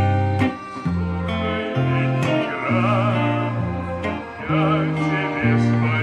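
Electric guitar strumming and picking a chord accompaniment over sustained bass notes that change every half second or so. A wavering melody line sounds above it about halfway through and again near the end.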